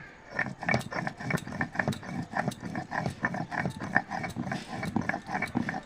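Dried red chillies being ground to a paste on a grinding stone, the stone rasping back and forth over them in a steady rhythm of about two to three strokes a second.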